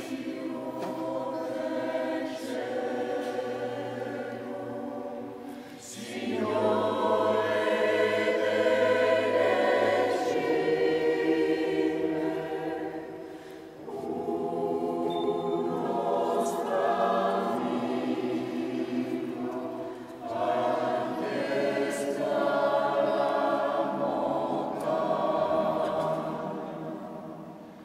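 Mixed choir of men and women singing together under a conductor, in a large church, in several held phrases with short breaks between them, fading out near the end.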